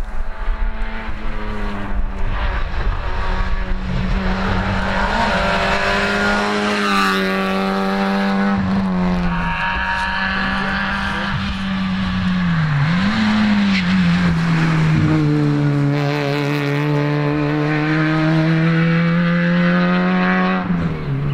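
Peugeot 106 rally car's engine running hard at high revs on a tarmac stage, the note held high for long stretches. About twelve seconds in, the revs dip briefly and come back up, as on a lift or a gear change, and they fall away near the end.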